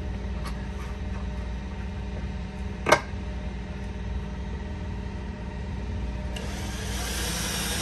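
Steady low machine hum, with one sharp click about three seconds in and a hiss joining near the end.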